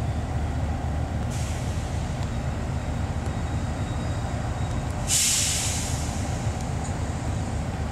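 Diesel-electric locomotive, a KAI CC 206, running with a steady low engine rumble as it creeps forward. Its air brakes let out two hisses: a fainter one about a second in and a loud one about five seconds in.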